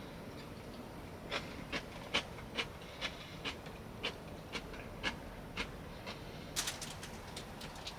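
Steady rain with irregular sharp taps of heavier drops landing close by, about one or two a second, and a quick flurry of several taps near the end.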